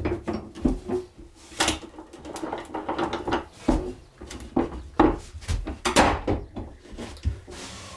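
Irregular wooden and metal knocks and clunks, about a dozen, from a cedar panel and steel bar clamps being handled on a workbench.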